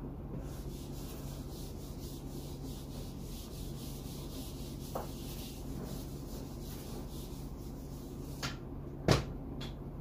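Whiteboard eraser scrubbing back and forth across a whiteboard in quick, even strokes, then stopping. Near the end, two sharp clicks, the second the louder.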